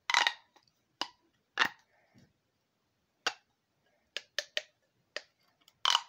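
Plastic pop tube fidget toy being stretched and bent, its ribbed sections popping with about nine sharp snaps at uneven intervals, three in quick succession a little after four seconds in.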